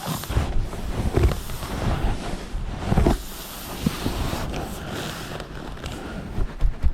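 Wind buffeting the microphone in irregular low gusts, with occasional knocks and rubbing.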